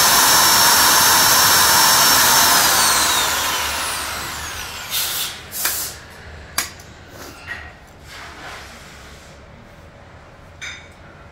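Electric motor of a butt fusion welding machine's pipe facing cutter running free at full speed with a high whine. About three seconds in it is switched off and its pitch falls as it winds down. A few knocks follow.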